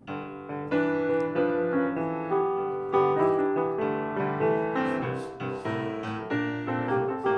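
Intro music played on piano: notes struck one after another and left to ring.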